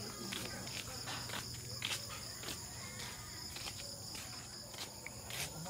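Night insects chirring steadily in several high pitches, with a few scattered soft footsteps.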